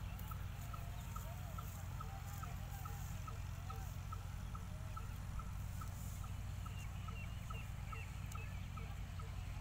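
Birds calling: one short note repeated evenly about three times a second, with wavering calls in the first half and a few higher chirps later, over a steady low rumble.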